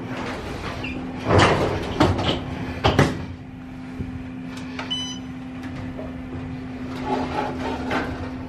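Inside an elevator car: a few loud knocks as someone steps in, then a short electronic beep from a floor button being pressed about five seconds in, over a steady low hum; the sliding doors close near the end.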